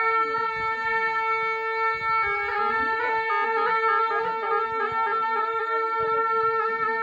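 A pair of Tibetan gyaling (double-reed shawms) playing. A long held, reedy note gives way about two seconds in to a moving, ornamented melody with shifting pitches.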